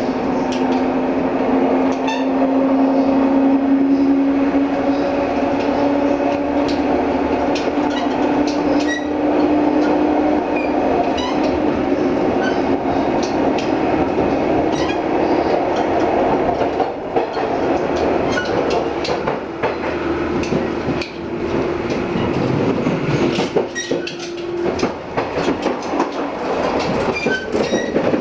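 Inside a 185-series electric train carriage under way: a steady hum from its traction motors that rises slowly in pitch over the first ten seconds or so, with the wheels clicking over rail joints and the car body rumbling.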